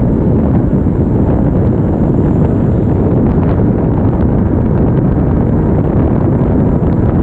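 Steady wind noise on a GoPro action camera's microphone, mixed with tyre rumble from a RadRover fat-tire e-bike rolling along at speed.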